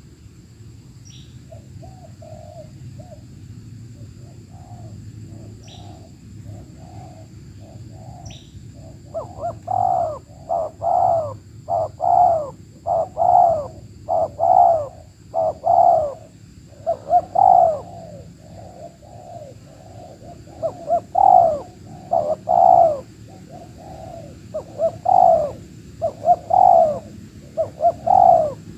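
Spotted dove cooing in a steady series of repeated phrases, faint at first and much louder from about a third of the way in. A few short, falling high chirps from another bird come early on.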